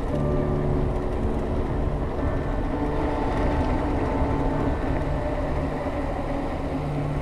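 Wind rushing over the camera microphone and tyre rumble on a paved road during a fast downhill bicycle descent, steady throughout, with faint held tones over it that shift every second or two.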